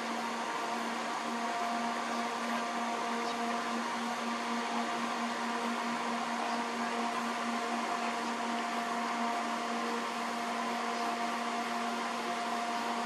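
Steady mechanical hum over a hiss, with a low tone and a few higher tones that hold unchanged throughout.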